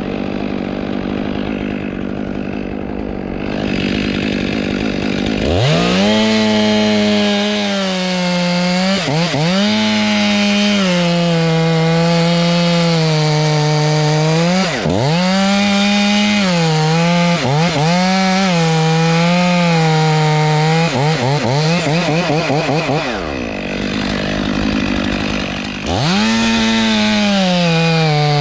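Two-stroke chainsaw idling, then revved to full throttle and cutting pine, its high engine note dipping and recovering again and again as the chain loads up in the wood. Near the end it is blipped quickly several times, falls back to idle, then revs up again.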